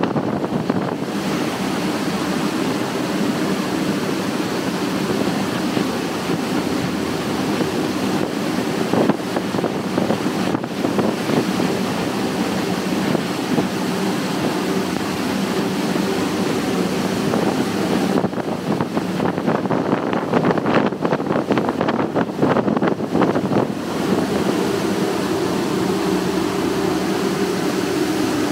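Boat running at speed: water rushing along the hull and wind on the microphone over a low, steady hum from triple Mercury 600 hp V12 Verado outboards, which are quiet enough that the water on the hull is heard more than the engines. Gustier buffeting on the microphone about two-thirds of the way through.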